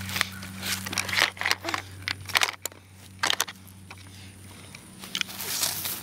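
Scattered clicks, knocks and scrapes from a plastic toy RC buggy being handled close by, over a faint low steady hum.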